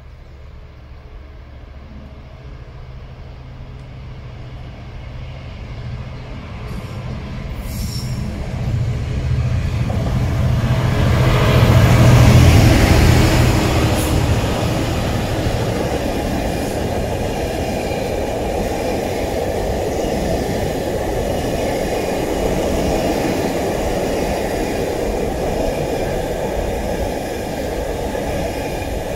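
Class 66 diesel-electric freight locomotive, with a two-stroke EMD engine, approaching and passing, loudest about twelve seconds in. Behind it a long train of container wagons rolls by with a steady rumble and wheel clatter.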